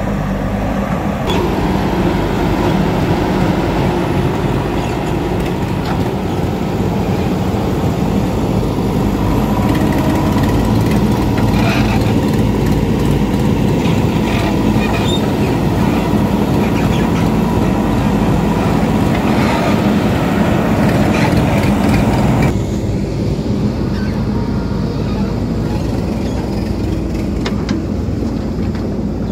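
JCB backhoe loader's diesel engine running steadily under working load as the backhoe digs and swings, with scattered sharp knocks of earth and stones in the middle. The sound turns duller about three-quarters of the way through.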